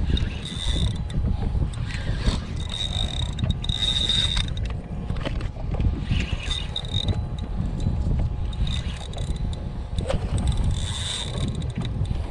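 Spinning reel being cranked against a hooked fish on a bent rod, its gears whirring in short spells of a high whine, over a steady rumble of wind and sea.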